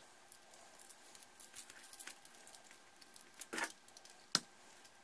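Utility knife blade scraping and cutting at the foil shielding of a coaxial security-camera cable. Faint scratching and rustling, with a louder scrape about three and a half seconds in and a sharp click just after.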